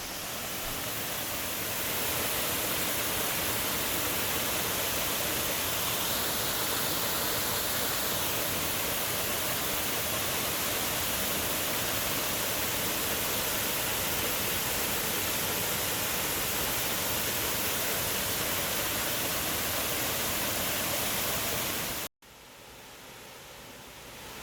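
Small waterfall on a forest stream, water rushing steadily. About 22 seconds in it cuts off suddenly and gives way to a quieter rush of water.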